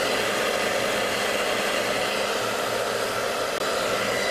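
Hand-held hair dryer running steadily, blowing hot air on a strip of clear plastic film to heat it so that it stretches.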